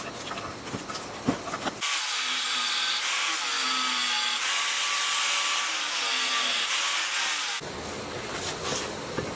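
Old copper stator windings being handled and pulled, a few clicks and knocks. Then, from about two seconds in, an angle grinder with a thin disc cuts into a generator's metal end cover for about six seconds, a steady high hiss that cuts off suddenly, followed by knocks of the cover being handled.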